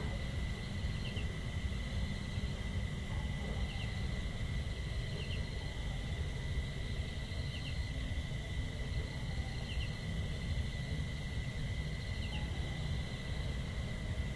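Outdoor ambience of a steady insect drone, a constant thin high tone with a hazier band above it. A short double chirp repeats about every two seconds over a low steady rumble.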